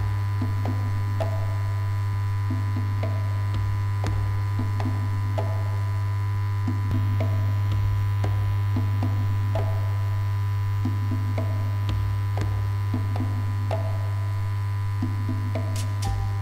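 Steady low electrical-sounding hum, with soft pulses recurring irregularly about once a second over it.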